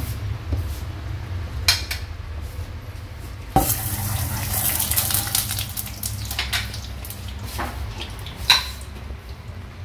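Cooking utensils clinking and knocking against pots and pans on a stovetop, with a few sharp knocks, the loudest about three and a half seconds in, over a steady low rumble.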